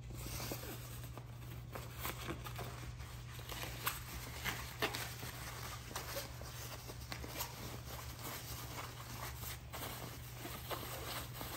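Stroller-wagon canopy fabric rustling and crinkling as it is handled and rolled up, with scattered small clicks and scrapes, a few sharper ones about four and five seconds in, over a steady low hum.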